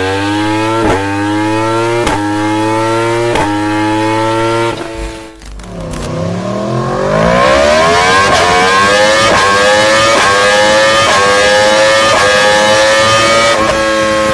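Yamaha R1-series superbike's inline-four engine accelerating hard through the gears. The exhaust note climbs in each gear and is cut short by a quick upshift about every second. About five seconds in it drops away briefly, then builds up through several more upshifts.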